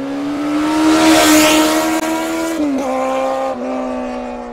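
Engine-like sound effect: a sustained high-revving tone that edges slightly up in pitch, with a rushing whoosh loudest about a second in. The pitch dips sharply twice near three seconds in, then sinks slowly as it fades out.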